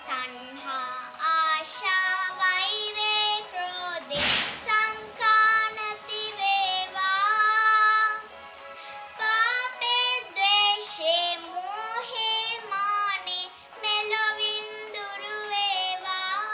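A young girl singing a Sinhala Buddhist devotional song over an instrumental backing of steady held tones. A short noisy burst cuts across the music about four seconds in.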